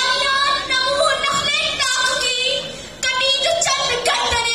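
A young girl's voice amplified through a podium microphone and PA, delivering a speech in long, high-pitched, drawn-out phrases, with a short break about three seconds in.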